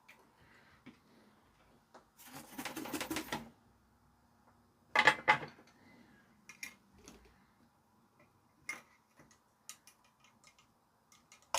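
Small tools and parts being handled on a workbench: scattered clicks and taps, a rustling scrape about two seconds in, and a sharp clatter about five seconds in.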